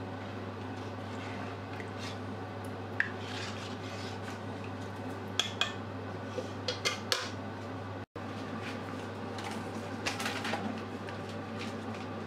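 Metal ladle stirring rice and milk in an enamelled pot, scraping and clinking against the pot several times: once about 3 seconds in, a cluster around the middle and more near 10 seconds. A steady low hum runs underneath.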